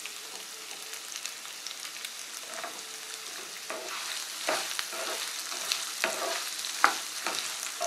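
Chopped onions sizzling in hot oil in a nonstick frying pan, with a wooden spatula scraping and knocking against the pan as they are stirred; the spatula strokes come more often from about halfway.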